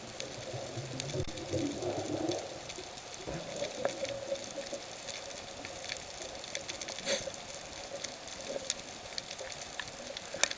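Underwater ambience picked up by a camera below the surface: a steady muffled hiss with scattered sharp clicks, the clearest about seven seconds in and near the end.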